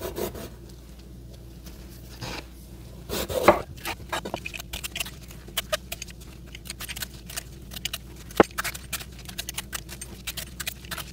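Gloved hands peeling the skin off roasted bell pepper quarters on a wooden cutting board: many small crackles, ticks and taps, with a louder knock about three and a half seconds in.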